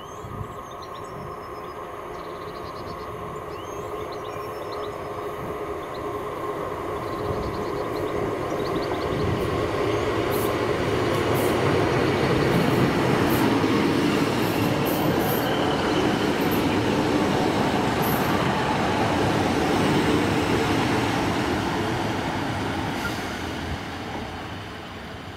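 Diesel multiple unit train running along the track, growing steadily louder as it comes near, loudest through the middle, then fading away near the end. Birds chirp faintly at the start.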